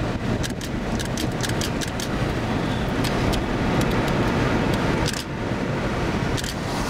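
Steady rush of storm wind and rain around a car with a window open, with many irregular sharp ticks of rain and small debris striking the car.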